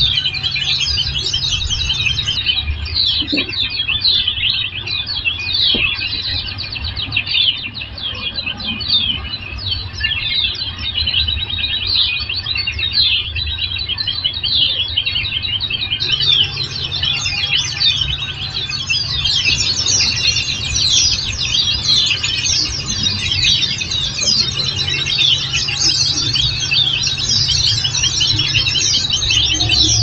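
A group of white-eyes (pleci) chirping and twittering without pause, a dense chorus of quick, high, downward-sweeping notes, over a steady low hum.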